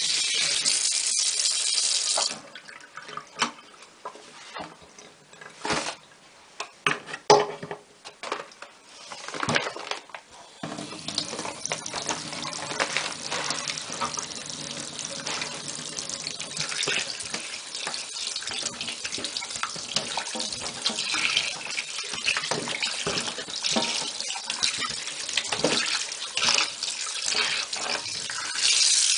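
Kitchen tap running into a stainless-steel sink while raw beef chunks are rinsed by hand. The water runs hard, stops after about two seconds, leaving a few sharp knocks and splashes, then runs steadily again from about ten seconds in, with small splashes and clicks from the meat being handled under the stream.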